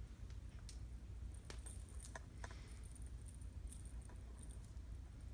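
Faint handling noise from curling hair with a curling wand: a scatter of small clicks and rustles over a low steady hum.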